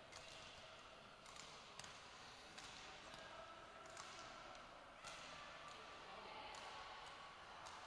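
Scattered sharp taps in an echoing sports hall during a badminton doubles game: a racket striking the shuttlecock and players' shoes on the court floor, about eight at irregular intervals.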